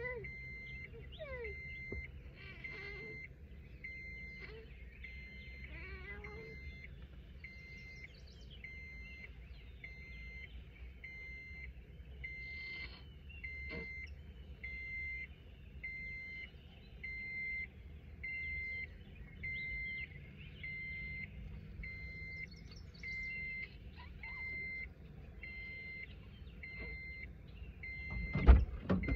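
A car's warning chime beeps steadily about once a second while a door stands open, and a cat meows now and then over it. Near the end a car door thumps shut, the loudest sound.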